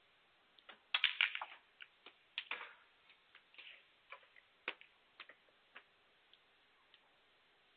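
Snooker balls colliding as the cue ball is played into the pack of reds: a quick cluster of sharp clicks about a second in, then scattered single clicks over the next few seconds as the reds spread and knock into one another, thinning out.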